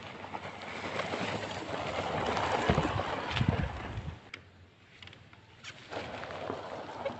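RC crawler truck driving through long grass close by, its tyres and body brushing and scraping the stalks in a rising rustle. There are two dull thumps in the middle, and the sound drops off suddenly just after four seconds.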